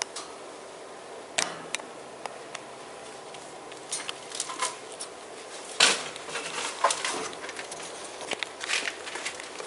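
Ferrets scrabbling and moving about as they play, with scattered sharp clicks and scratchy bursts that come in clusters from about four seconds in, the loudest near the middle.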